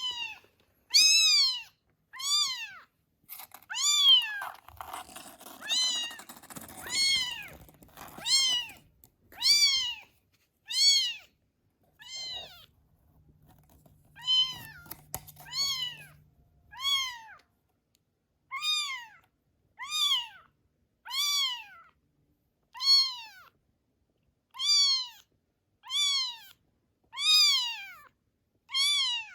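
Newborn kitten crying over and over, a high-pitched meow every second or so, each call rising and then falling in pitch. Some rustling and a few clicks sound under the cries in the first half.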